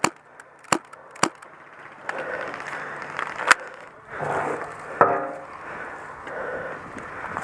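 Airsoft guns firing: three sharp snaps in the first second and a half and a louder one about three and a half seconds in, with a short rattle about five seconds in, over rustling movement.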